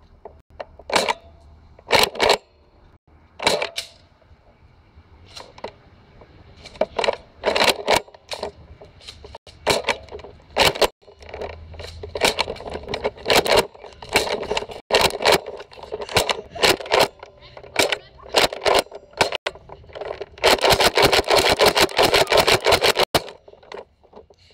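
Repeated loud plastic clacks and knocks from a Nerf Rampage pump-action blaster fitted with a Raider drum magazine, as its slide is racked and darts are fired, along with handling knocks. About twenty seconds in comes a stretch of rapid, dense clattering.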